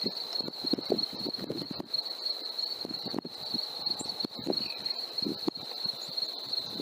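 Crickets chirring in a steady high-pitched band, with irregular soft low knocks underneath.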